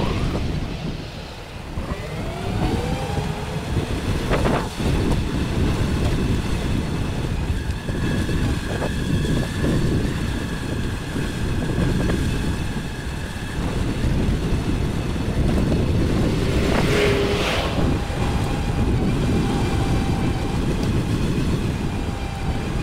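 Wind buffeting the microphone over steady rolling road noise while riding along a street. A faint steady high whine runs through the first half, and there are two short bumps, about four seconds in and again a few seconds after the middle.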